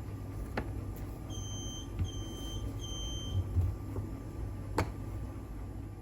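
Three short, high electronic beeps in quick succession, with a few light clicks and a low steady hum.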